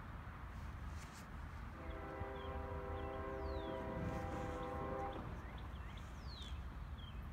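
Distant horn of an approaching CSX freight train's lead locomotive, an ES40DC, sounding one long blast of about three and a half seconds as a chord of several steady notes. The blast starts about two seconds in, over a constant low rumble.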